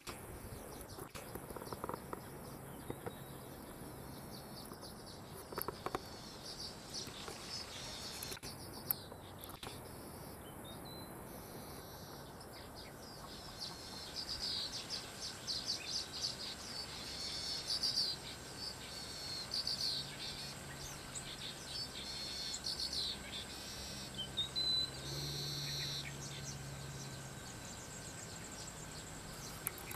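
Swamp ambience: birds chirping and insects calling over a steady high-pitched insect drone, the chirping busiest in the second half.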